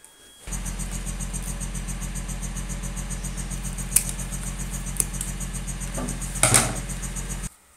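A loud, steady low buzzing hum that switches on abruptly about half a second in and cuts off abruptly near the end. Over it come two sharp scissor snips about four and five seconds in as cockatiel wing feathers are trimmed, then a brief louder burst a little after six seconds.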